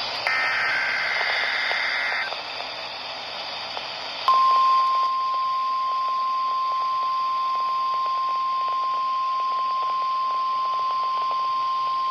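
NOAA Weather Radio broadcast playing through a Midland ER210 weather radio's speaker over a hiss of static. The warbling two-tone SAME header data burst of the weekly test ends about two seconds in. About four seconds in, a steady single-pitch 1050 Hz warning alarm tone starts.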